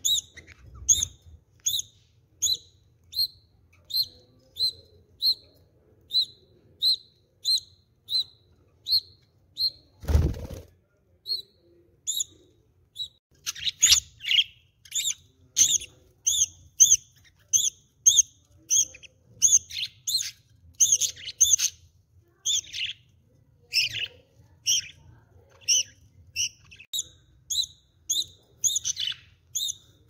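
Budgerigars chirping: short high chirps repeating at an even pace of about one and a half a second, growing busier and overlapping from about fourteen seconds in. A brief rustling burst comes about ten seconds in.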